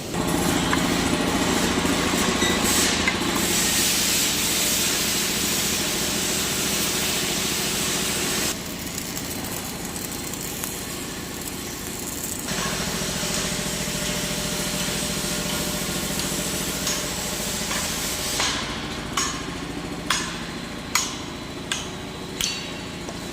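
CNC plasma cutter cutting: the torch's loud hiss over a steady electrical hum starts suddenly, then the hiss cuts off about eight seconds in while a machine hum carries on. Several sharp clicks or knocks come near the end.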